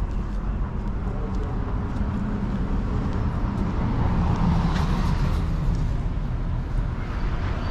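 City street traffic: a steady engine rumble and road noise, swelling as a vehicle passes about halfway through.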